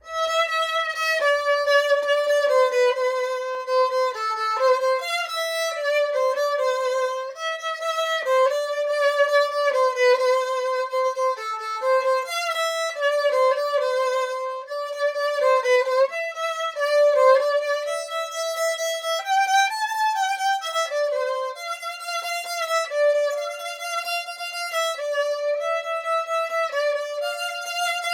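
Solo violin playing a melody, unaccompanied, one clear line of separate notes.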